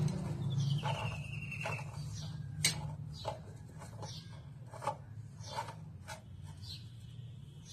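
Scattered light clicks and clinks with some rubbing, and a couple of short high squeaks, over a steady low hum.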